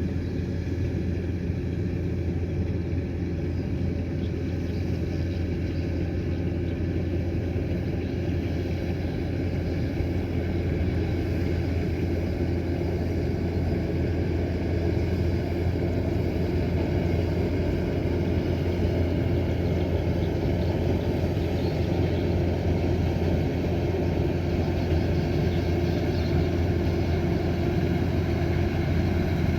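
Kubota combine harvester's diesel engine and threshing machinery running steadily with a continuous low hum.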